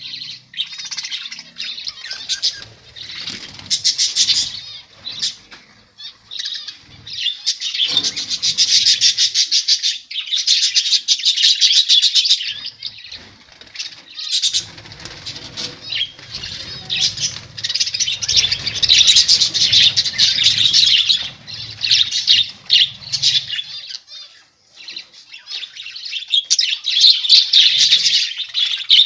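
A colony of budgerigars chattering and chirping continuously, with bursts of fast warbling chatter, and wings flapping at times.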